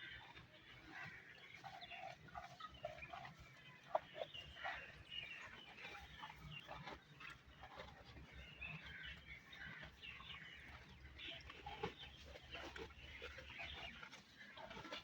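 Buffalo tearing and chewing grass: faint, irregular crunching and ripping, with a sharper snap about four seconds in. Birds call in the background.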